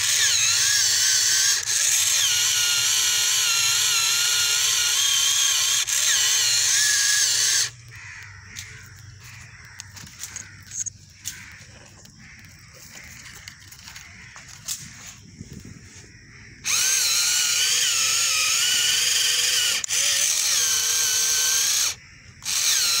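A homemade mini tractor's small motor and gears whining steadily as it drives in sand, the pitch wavering. The whine stops about eight seconds in, leaving faint scattered clicks, and starts again about seventeen seconds in, with a brief break near the end.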